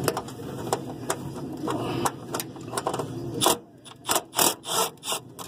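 Cordless drill driver with a socket extension running against a bolt on a rooftop unit's sheet-metal panel, with scattered clicks. Near the end the drill gives four short trigger bursts.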